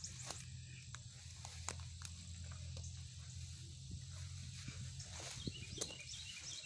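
Footsteps on a dirt park trail, with scattered crunches and ticks over a steady low rumble, and a brief run of chirps near the end.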